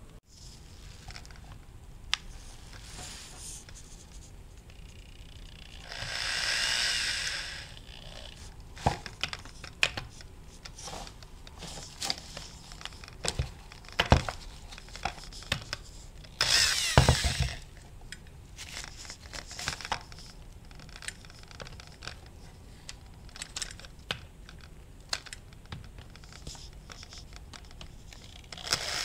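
Scattered clicks and knocks of hand tools and metal parts being handled during work on an automatic transmission. Three short bursts of noise come about 6, 17 and 29 seconds in, the middle one the loudest.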